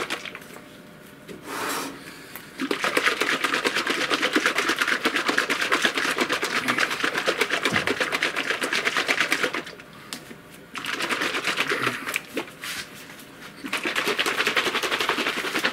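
Liquid resin sloshing and rattling inside a plastic bottle that is being shaken hard and fast, in long spells with two short pauses. The resin is being shaken to remix it before printing again.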